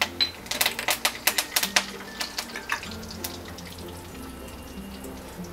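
Curry leaves spluttering and crackling in hot oil with mustard and cumin seeds, the tempering of a dish: a fast run of sharp pops over a steady sizzle. The pops thin out after about two seconds.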